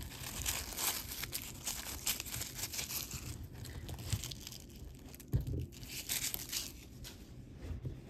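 Wrapping being crinkled and torn open by hand in a run of irregular crackles, with one dull knock about five seconds in.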